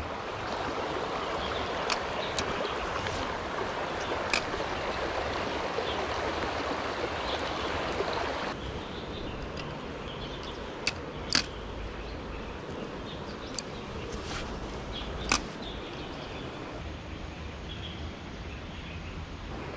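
Small stream running, a steady rushing of water, with a few sharp clicks and taps scattered through it. About eight and a half seconds in, the rushing suddenly drops and loses its hiss.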